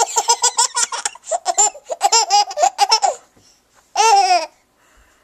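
Six-month-old baby laughing hard in a quick run of high giggles for about three seconds, then one longer high laugh about four seconds in.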